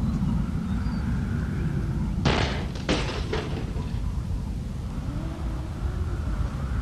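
Wind howling outside in gusts over a low rumble, with faint rising and falling whistles. About two seconds in there is a quick cluster of three or four sharp bangs.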